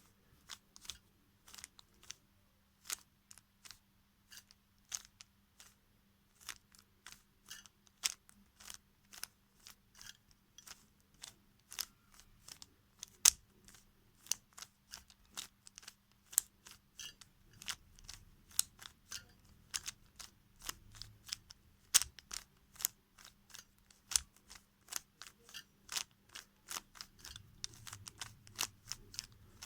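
Plastic Rubik's cube being turned by hand: an irregular string of sharp clicks as the layers snap round, sometimes several in quick succession.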